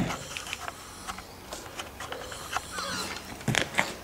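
Handling noise: scattered small clicks and rustles of equipment being fiddled with, with a couple of sharper clicks about three and a half seconds in.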